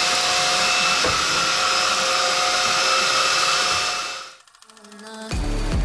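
Cordless stick vacuum's brushless motor running steadily: an airy rush with a high whine. It cuts off about four and a half seconds in, and background music starts near the end.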